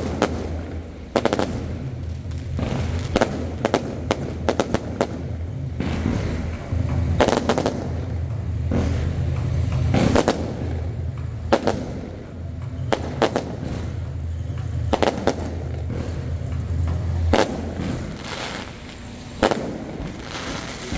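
Aerial fireworks shells bursting overhead: a loud bang every second or two, with crackling between them, over a steady low rumble.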